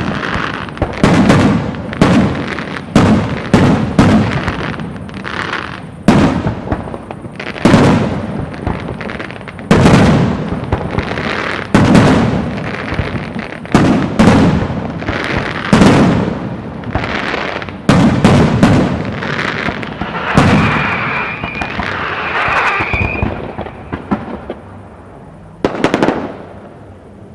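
Fireworks display: aerial shells bursting one after another, about a bang every second, each followed by crackling. Two whistling tones sound among the bursts past the middle, then the shots thin out to a last single bang near the end.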